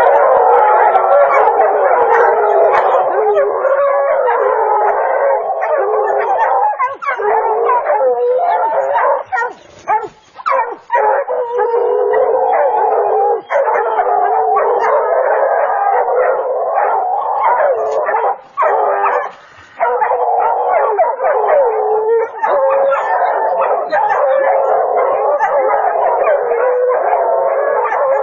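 A pack of hunting hounds baying and howling together at a big cat they have treed, many voices overlapping without a break except for two brief lulls, about a third of the way in and again past the middle.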